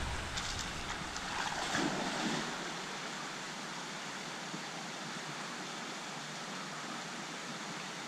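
Steady rush of running water in a rocky canyon pool.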